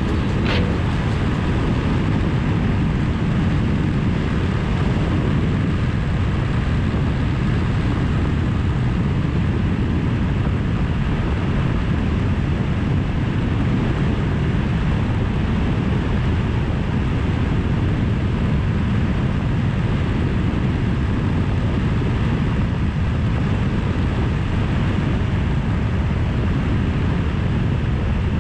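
Suzuki V-Strom 1000 motorcycle cruising at a steady speed: a constant rush of wind on the microphone with engine and road noise beneath it.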